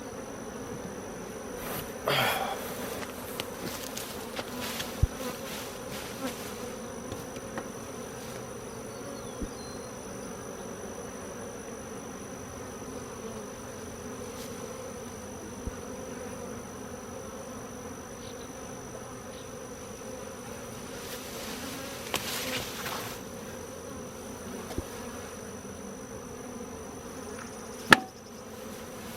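Honeybees from an opened, disturbed hive buzzing in a steady drone, with a few knocks and one sharp click near the end as hive boxes are handled.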